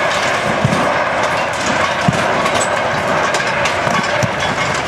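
Diesel engine of a long-reach demolition excavator running steadily under load, with a few dull knocks from the work on the concrete silos.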